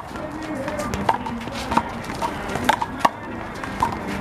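Rubber handball being smacked by hand and slapping off the wall and court during a rally: about half a dozen sharp, unevenly spaced smacks.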